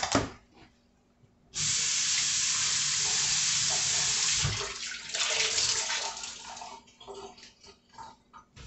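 Kitchen faucet turned on, with water running into the sink for about five seconds before it is shut off.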